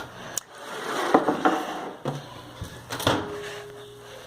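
A few sharp knocks and clatter of kitchen things being handled, with a rustle between the first knocks.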